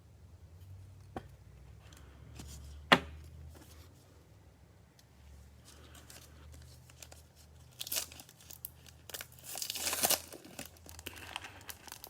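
Cellophane wrapper of a Mosaic football card pack being torn open and crinkled, in several crackly bursts in the last few seconds. A sharp click about three seconds in is the loudest single sound.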